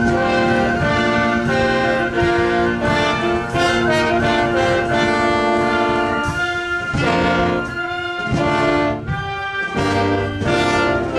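A live church orchestra playing, with brass such as trombones and trumpets carrying sustained melody notes over percussion.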